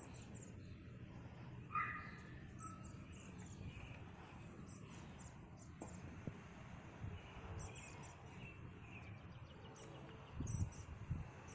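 Quiet outdoor ambience: a low steady rumble of background noise with faint high bird chirps recurring throughout, one clearer chirp about two seconds in.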